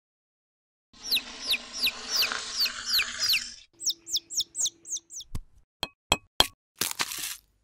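Chicken peeping as a sound effect: a run of short, high, falling cheeps, about three a second, then a fainter second run. It is followed by a few sharp clicks and knocks of plastic LEGO bricks as a LEGO egg is cracked and clear bricks drop into a bowl of LEGO pieces.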